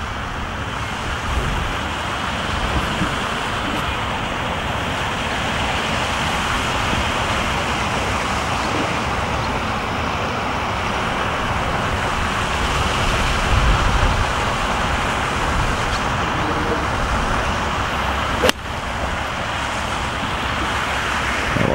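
Steady rushing wind noise, broken about three-quarters of the way through by one sharp click of a golf iron striking the ball off the tee.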